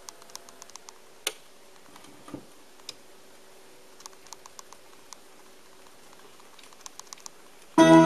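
Vinyl surface noise from a record on a Technics SL-5 linear-tracking turntable: scattered clicks and pops as the stylus rides the groove before the music. Music from the record starts suddenly near the end.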